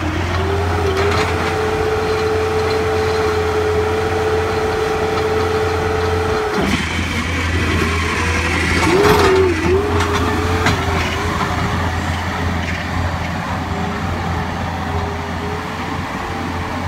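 Bobcat 773 skid-steer loader running hard, its engine and drive giving a steady high whine. The whine drops out about six and a half seconds in, then comes back wavering in pitch with knocks and rattles around nine seconds in as the machine is rocked forward onto its front wheels, before it settles as the loader drives away.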